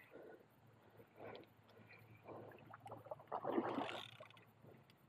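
Hooked carp splashing at the water's surface close to shore as it is played on the rod, in a scatter of irregular splashes with the loudest burst about three and a half seconds in.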